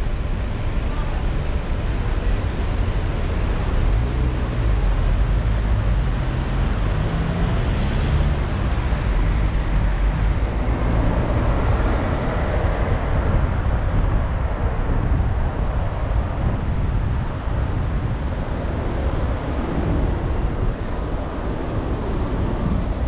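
Car driving on city streets: steady engine and tyre rumble, with the engine note rising for a few seconds about a third of the way in.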